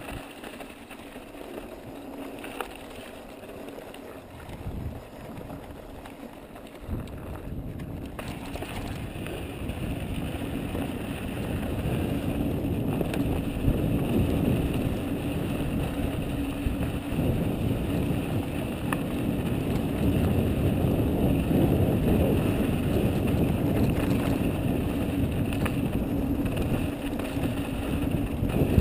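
Wind rushing over the camera microphone and mountain bike tyres rumbling on a loose dirt trail during a descent. The noise is lighter at first, then grows steadily louder from about seven seconds in as speed picks up, with a few faint ticks.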